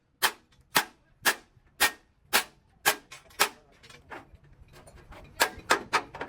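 Hammer strikes at a steady pace of about two a second, seven in a row, then a short lull with faint knocks, then three quicker blows near the end.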